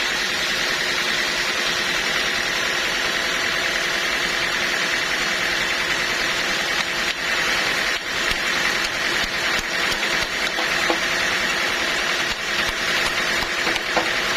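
Sawmill machinery running steadily with a continuous mechanical hum and hiss; from about seven seconds in, irregular knocks and crackles join it.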